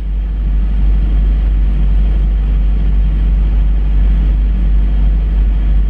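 Freightliner Cascadia semi truck's diesel engine idling, a steady low rumble heard inside the cab.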